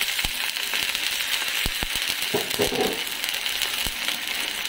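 Hot oil sizzling and crackling in a small frying pan as canned mackerel and its liquid go in on top of sautéed onion and browned garlic, with a few sharp clicks.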